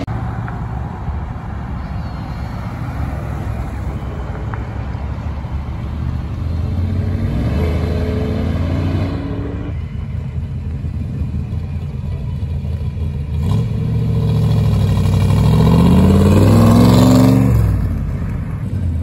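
Car engines revving and accelerating away, the engine note rising in pitch. A louder car builds from about two-thirds of the way in, then its sound drops away sharply near the end.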